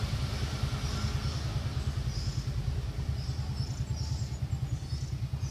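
A motor engine running steadily nearby, a low pulsing drone that does not change, with faint short high chirps scattered over it.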